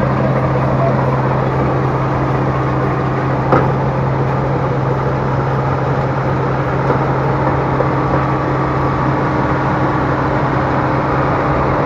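Rice harvesting machine running steadily with a constant engine hum, with one sharp click about three and a half seconds in.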